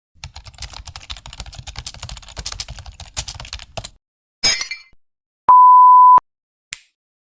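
A string of short sound-effect clips: rapid clicking like keyboard typing for about four seconds, a brief noisy burst, then a single steady beep lasting under a second, the loudest sound, like a censor beep.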